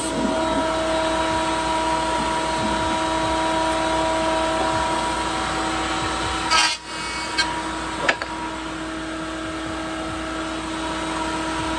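Shop dust collector running steadily with a constant whine. About two-thirds of the way in there is a sharp knock, and a lighter click comes about a second later.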